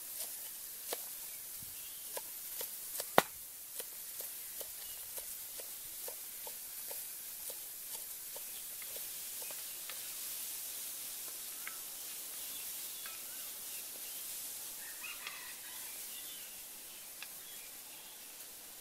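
Cleaver chopping green onions against a bamboo tube: sharp knocks about once or twice a second, one much louder about three seconds in. The chopping stops and a steady high outdoor hiss remains, with a few short bird chirps near the end.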